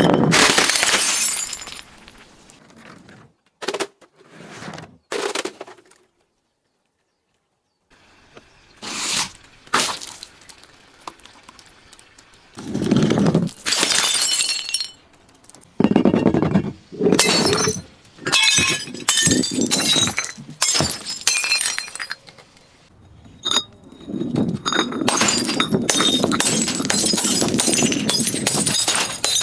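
Glass being smashed and crushed over and over: loud bursts of crunching and shattering with shards tinkling, broken by a short dead silence about six seconds in.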